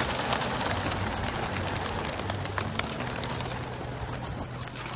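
A flock of racing pigeons taking off together, a dense clatter of flapping wings that thins out and fades as the birds fly off. A low steady hum runs underneath.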